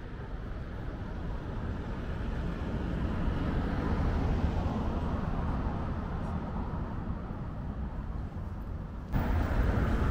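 City street traffic noise: a steady rumble of passing vehicles that swells and eases. About nine seconds in it jumps abruptly to a louder stretch.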